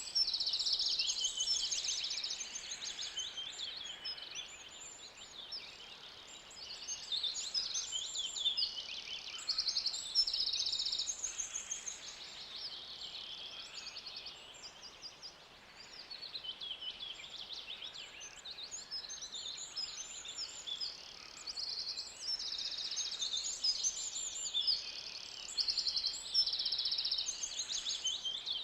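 Forest ambience full of many birds singing and calling at once: overlapping high chirps and fast trilled phrases, thinning out briefly about halfway through before the chorus picks up again.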